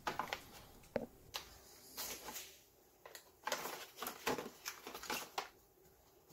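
Nitrile-gloved hands rubbing and pressing an adhesive magnet sheet flat onto a 3D-printer bed, handling its paper backing: a string of short, scattered rustles and swipes.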